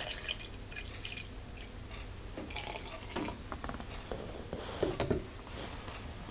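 Milk being poured from a glass measuring cup into a plastic blender cup, a splashing trickle that comes in spurts. About five seconds in come a few knocks and clicks as the blender's blade lid is handled onto the cup.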